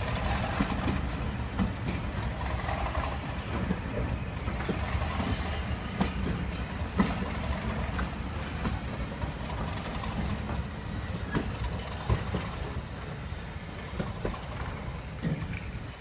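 Train of coaches pulling out behind a Class 37 diesel locomotive: a steady low rumble from its English Electric V12 engine, with wheels clicking and knocking over the rail joints, slowly fading.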